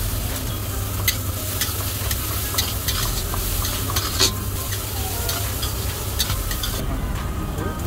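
Chopped onions sizzling in hot oil in a kadai as a metal spatula stirs them, scraping and clicking against the pan, over a steady low hum. The sizzle thins a little near the end.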